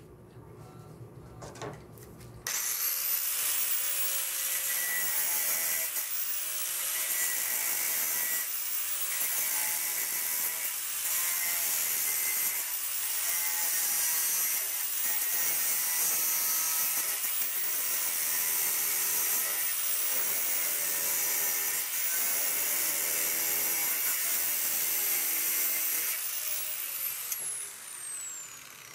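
Electric angle grinder, after a few handling clicks, switched on a couple of seconds in and cutting off stainless steel 6-32 machine screws that stick through plexiglass, its whine shifting in pitch as it bites. Near the end it is switched off and winds down with a falling whine.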